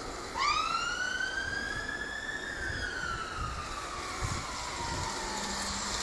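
A single siren wail: one pitched tone that rises quickly, peaks about two seconds in, and then slowly falls away.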